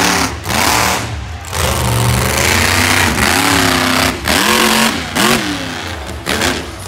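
Monster truck engines revving hard on the dirt track, their pitch swooping up and down again and again as the drivers work the throttle.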